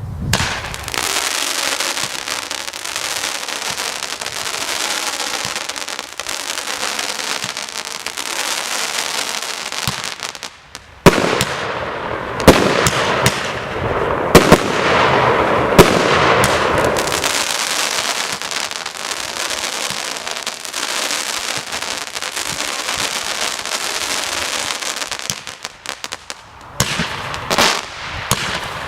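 A consumer firework, the "Tropic Lightning", going off with a steady, dense crackle. Several loud, sharp bangs come through between about 11 and 16 seconds in, and the crackle thins into scattered pops near the end.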